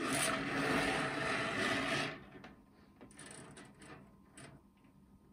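A long, springy bare copper wire coil dragged and straightened across a wooden desktop, its turns rattling and scraping for about two seconds. After that come faint clicks and taps as hands work at the coil's end.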